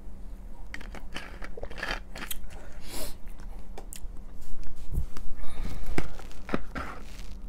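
Eating and drinking mouth sounds: swallowing and lip smacks after a drink of soda, then chewing, with louder clicks and smacks about five to six seconds in.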